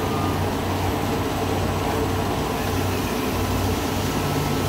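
Toilet paper production line machinery running: the conveyors carrying finished rolls give a steady mechanical hum and rumble with a low drone under it, unchanging throughout.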